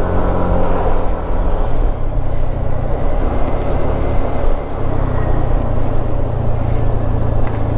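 Motor vehicle engine running while driving, with road noise; the engine note shifts in pitch twice.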